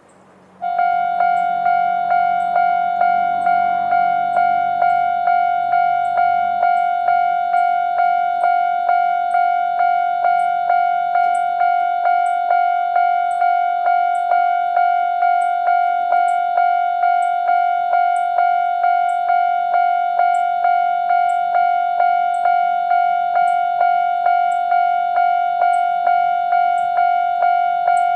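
Japanese railway level crossing's electronic warning bell starting up about a second in and then ringing in an even, repeating 'kan-kan' rhythm, each strike a bright tone that rings on into the next. This is the crossing's normal alarm, warning that a train is approaching.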